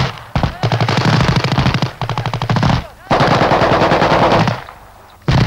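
Soviet bipod-mounted light machine gun firing long bursts of rapid automatic fire, then a short burst near the end.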